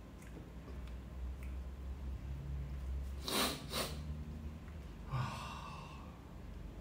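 A man sniffing hard twice through his nose about three seconds in, then letting out a breathy exhale about two seconds later, short of breath from the burn of extremely spicy noodles.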